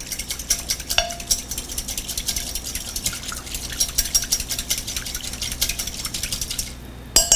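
Whisk beating an oil-and-vinegar dressing in a glass bowl, with a fast, steady clicking of the whisk against the glass. There is a louder ringing clink about a second in and a few more near the end.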